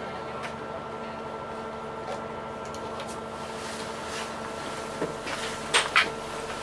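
Steady machinery hum of an express passenger boat under way, holding several fixed tones, with scattered light clicks and two sharper knocks near the end.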